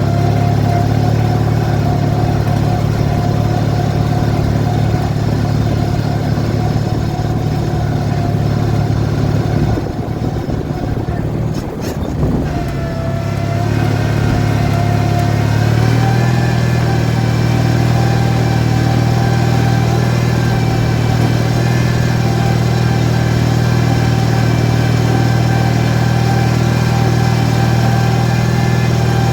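18 hp Briggs & Stratton twin-cylinder engine of a modified Craftsman lawn tractor running steadily. It eases off briefly about ten seconds in, then picks back up and holds an even note.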